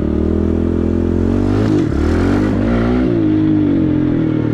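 Pit bike's small single-cylinder engine running while being ridden, the revs dipping and climbing again twice around the middle.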